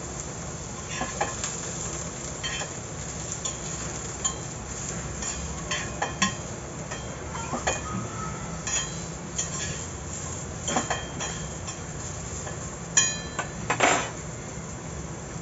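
A metal utensil clinking and scraping against a pan at irregular intervals, with a quick run of louder clinks near the end, over a steady sizzle from the hot pan.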